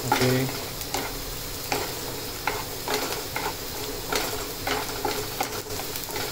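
Chopped onions sizzling in oil in a non-stick frying pan, stirred with a spatula that scrapes and taps against the pan at irregular moments. The onions are being sautéed until they turn yellow.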